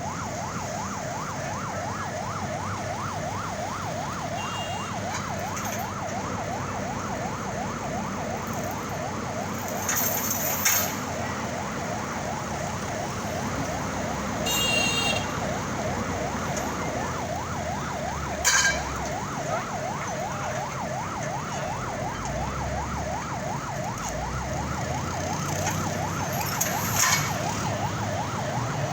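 Electronic warning siren warbling up and down several times a second without a break, over a steady rumble of engines and traffic. A few sharp metallic knocks cut in about a third of the way in, about two-thirds in and near the end.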